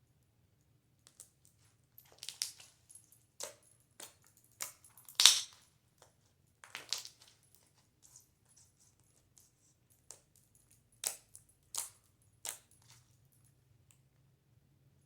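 Clay slime being mixed in a bowl, giving irregular sticky pops and crackles, the loudest about five seconds in.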